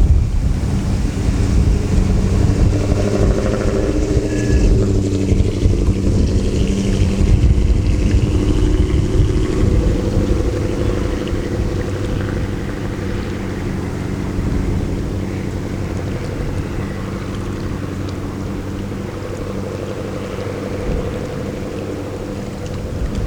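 Lake freighter's engine drone as the ship passes: a steady low hum with several pitches, easing a little in the second half, over wind rumble on the microphone.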